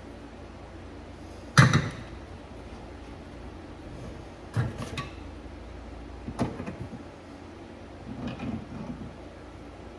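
Metal tools knocking and clicking against a pipe fitting while a compression valve with its crush sleeve is worked into place: one sharp knock about one and a half seconds in, then a few lighter clicks and knocks.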